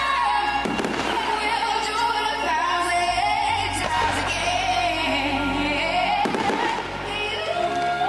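Show music played over loudspeakers, operatic singing with wide vibrato over sustained low orchestral notes, with a few firework bursts going off across it.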